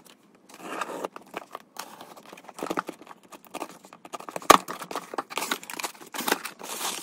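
Packing tape on a corrugated cardboard box being slit and torn and the box flaps pulled open: a run of irregular scratching and tearing noises, with one sharp snap about four and a half seconds in.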